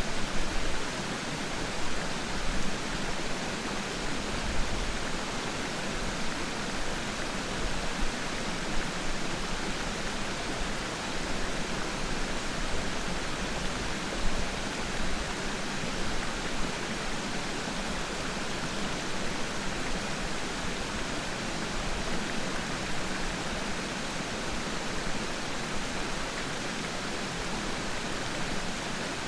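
Waterfall pouring and splashing: a steady rush of water noise, with brief louder surges in the first half.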